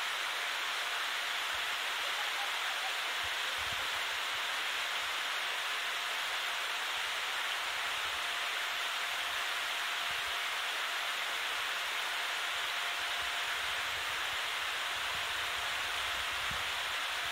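A steady, even hiss that does not change, with a faint steady whine running through it.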